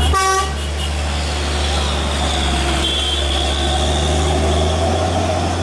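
Steady low rumble of vehicle engines, a pickup and a diesel truck, pulling away on the road. A brief tooting tone comes right at the start, with faint voices behind.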